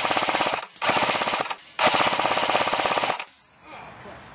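Airsoft M60 machine gun firing three bursts of full-auto fire, each a fast, even rattle of shots; the last and longest burst stops about three seconds in.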